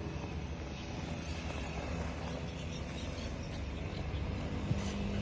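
A steady engine drone with a low hum, getting a little louder near the end.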